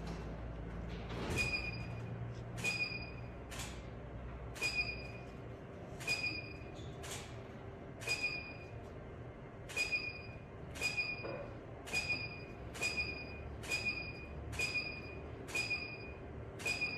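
Camera shutter clicks at a studio photo shoot, fired about once a second, each followed by a short high beep, over a steady low room hum.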